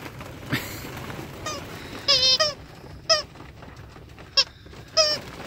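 Squeaky plush dog toy squeaking in short honking notes as a husky puppy bites and chews it, five or so squeaks, one longer and wavering about two seconds in.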